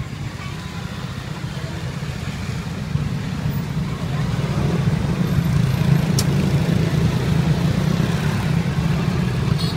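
Street ambience dominated by a steady low engine rumble of passing traffic, growing louder about three to four seconds in, with faint voices beneath.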